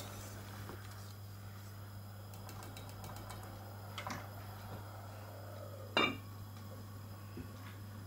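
Heavy lid of an enamelled cast-iron casserole set onto the pot with one sharp, ringing clank about six seconds in, after a lighter click about four seconds in. A steady low hum runs underneath.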